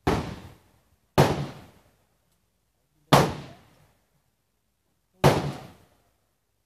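Four gunshots at irregular gaps of one to two seconds, each a sharp crack dying away over about half a second.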